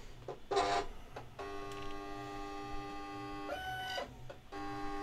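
Silhouette Cameo vinyl cutter's motors whining steadily as it loads the cutting mat, in several runs with short pauses. One run, shortly before the end, is higher-pitched.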